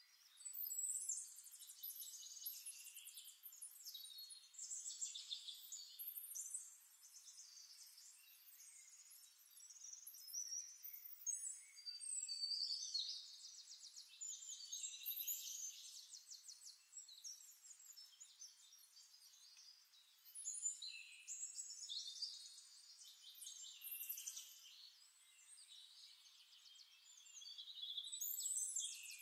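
Faint birdsong: high-pitched chirps and rapid trills in phrases of one to three seconds, one after another.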